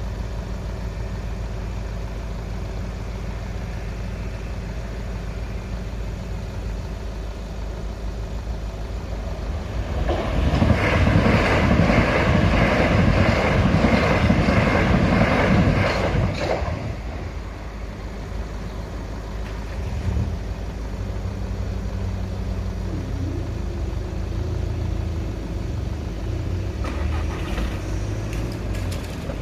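Southeastern Class 375 electric multiple unit passing over a level crossing, loud for about six seconds from roughly ten seconds in, then fading. Car engines idle throughout. Near the end there is a steady hum as the crossing barriers rise.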